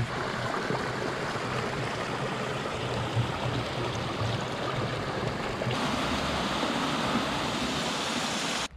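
Steady rush of rain-fed runoff flowing through a desert wash that is normally dry; the sound shifts slightly about six seconds in and cuts off suddenly near the end.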